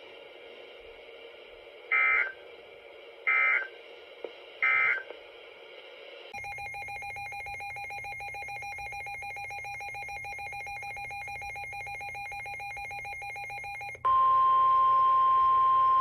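Three short bursts of Emergency Alert System digital data tones, the end-of-message code marking the close of the warning, come about two, three and a half and five seconds in. They are followed by a quieter steady buzz with faint fixed tones. Two seconds before the end, the NOAA Weather Radio 1050 Hz warning alarm tone starts, loud, steady and single-pitched.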